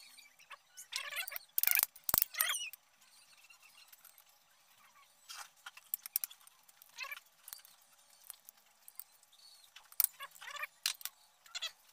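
Short clicks and knocks of the air gun's metal parts being handled and worked by hand, the two loudest about two seconds in. Poultry call now and then in the background.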